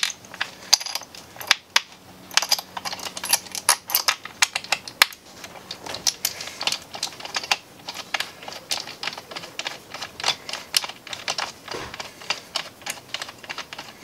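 Rapid, irregular clicking and tapping of small hardware being fitted by hand onto a wooden jig that holds a hydraulic crimping tool.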